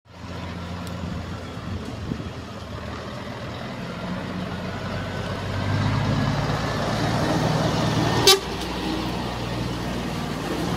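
Scania R420 diesel truck running as it approaches and passes close by, its engine drone growing louder about halfway through. A short, loud, sharp blast comes about eight seconds in.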